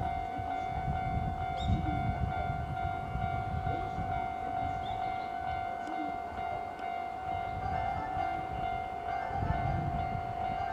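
Keihan 6000 series electric train rolling around a curve: a steady high-pitched tone held at one pitch over the low, uneven rumble of its wheels on the rails.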